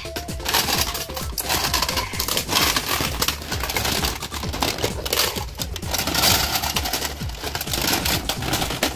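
Plastic Nerf blasters and magazines clattering and knocking against each other in a storage bin as a hand rummages through them: a dense run of irregular clicks and knocks.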